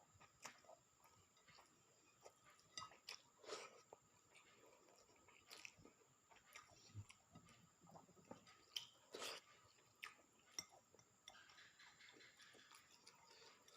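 A person chewing food close to the microphone, with faint, irregular mouth clicks and smacks.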